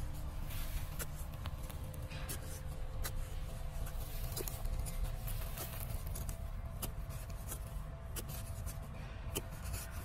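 Small metal hand shovel digging and scraping dry, stony soil: irregular scrapes and ticks as the blade cuts in and loosens earth, over a steady low rumble.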